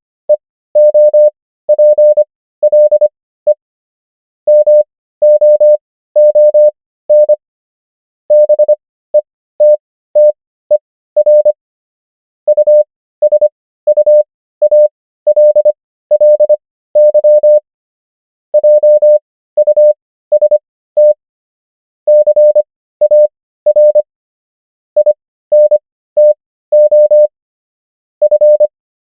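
Morse code practice tone: one steady mid-pitched beep keyed on and off in short dots and longer dashes. The characters are sent at 25 words per minute, with wider Farnsworth gaps between letters and words (15 wpm overall), spelling out common English words.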